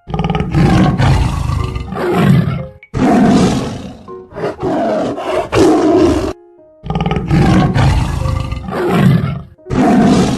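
Tiger roaring and growling: four long, rough roars, each broken off by a short pause.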